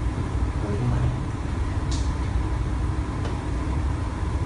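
Steady low rumble and hum of classroom background noise, with faint indistinct voices and a brief hiss about two seconds in.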